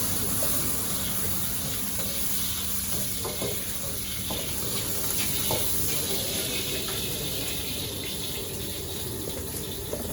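Steady noise from a working kitchen station: a continuous hiss over a low hum, with a few light clicks and knocks.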